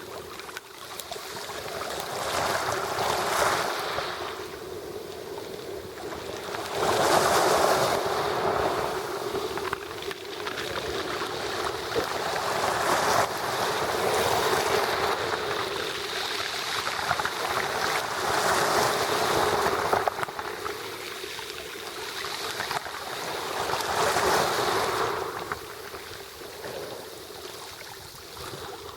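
Sea waves breaking on the shore, the rush of surf swelling and fading every five seconds or so.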